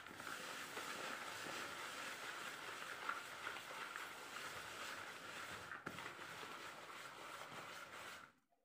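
Steady hissing background noise with faint rustling and scraping of a hand working damp rice flour in a plastic basin; the hiss cuts off abruptly near the end.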